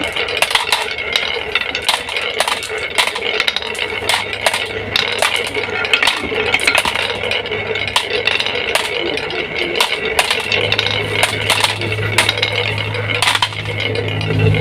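Marbles rolling and clattering down a marble run: a rapid, continuous stream of clicks and rattles. About ten seconds in, a low steady hum joins them.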